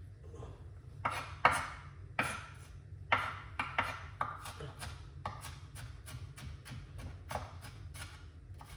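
Kitchen knife dicing a white onion on a cutting board: a run of sharp chops at an uneven two or three a second, a few of them louder, over a steady low hum.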